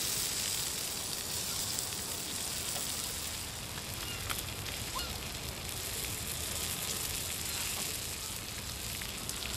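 Barramundi fillet frying in olive oil on a hot barbecue flat plate: a steady sizzle with a few faint small crackles.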